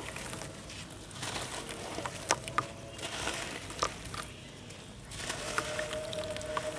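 Handmade sand-and-cement balls crumbled by hand over a tub of water: gritty crumbling and a stream of falling grit pattering into the water, with several sharp little splashes and drips.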